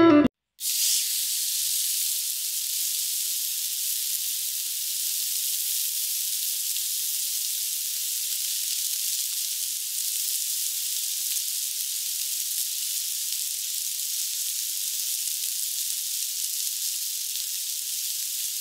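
Cordless angle grinder working at the base of the frame: a steady, even high hiss that starts about half a second in and holds without a break.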